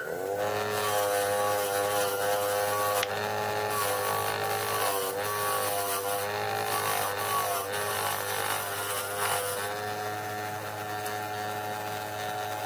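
Bench grinder fitted with a wire brush wheel, running with a steady hum and motor whine while a rusty roller chain is pressed against the spinning bristles to scour off rust. The whine wavers and dips as the chain loads the wheel, with bursts of high scratching hiss from the wire on the metal.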